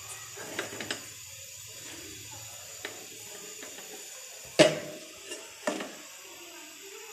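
A handful of short, sharp metal clinks and knocks of cookware on a steel stovetop, the loudest about halfway through, with a second clear one a second later.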